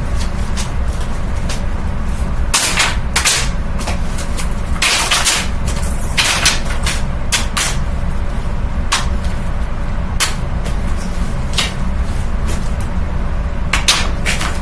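Amazon Basics box fan running with a steady low hum, while cards thrown into it clatter against the spinning blades and grille in sharp irregular clacks, thickest a few seconds in.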